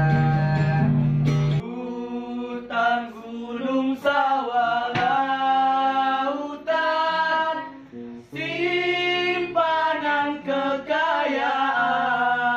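A few young voices singing a slow song together in phrases, accompanied by a strummed acoustic guitar, with a brief pause between phrases about two-thirds of the way through.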